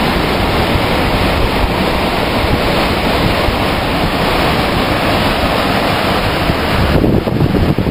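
Ocean surf rushing steadily, with wind buffeting the microphone in a low rumble. About seven seconds in the high hiss fades and the wind rumble comes forward.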